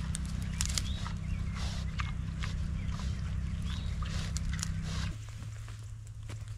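Gloucestershire Old Spot gilts rooting and feeding in wood-chip mulch, with many sharp crunching clicks. Under them runs a steady low hum that drops in pitch about five seconds in.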